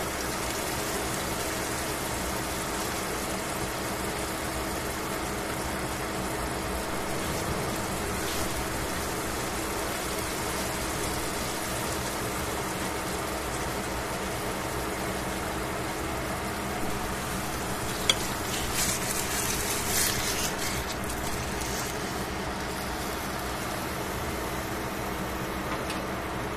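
Pork steak sizzling steadily in oil in a stainless steel frying pan, over a steady low hum. About two-thirds of the way through comes a sharp click, then a couple of seconds of louder hissing.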